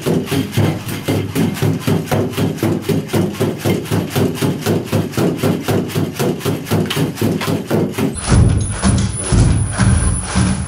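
Electronic background music with a fast, steady beat. About eight seconds in it changes abruptly to a heavier, bass-laden passage.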